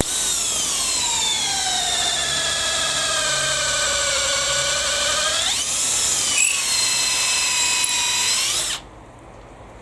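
Makita cordless drill in high gear boring with a 10 mm auger bit. The motor whine starts suddenly, drops steadily in pitch as the motor slows under the load, speeds back up with a quick rise in pitch about five and a half seconds in, then cuts off abruptly near the end.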